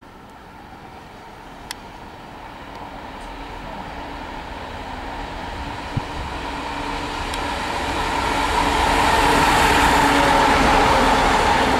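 Class 165 Networker Turbo diesel multiple unit approaching and passing close by. Its engine hum and running noise grow steadily louder and peak near the end.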